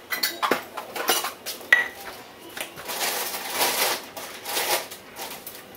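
Kitchenware and metal utensils clattering and clinking as they are handled, with one sharp, ringing clink a little under two seconds in.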